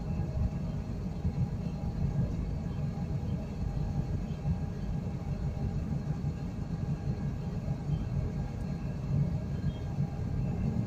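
Construction crane's engine running with a steady low rumble and a faint hum above it, while the crane holds a steel pile suspended from its cable.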